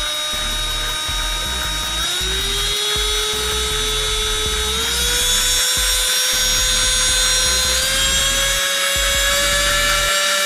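Black+Decker BDCDD12K 10.8 V lithium-ion cordless drill driver running free with no load: a steady motor-and-gearbox whine. The pitch drops about two seconds in, then climbs step by step as the drill speeds up toward its no-load top speed of about 550 rpm.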